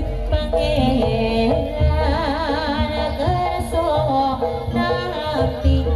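Javanese barongan gamelan music: drum and gong strokes under steady pitched notes, with a high, wavering melody line entering about two seconds in.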